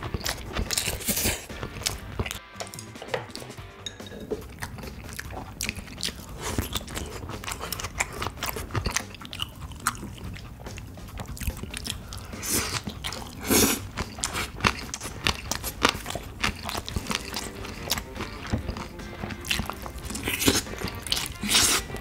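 Close-miked chewing and biting while eating Spam-mayo rice and spicy bean-sprout pork bulgogi, with many short wet clicks and some crunching, over background music.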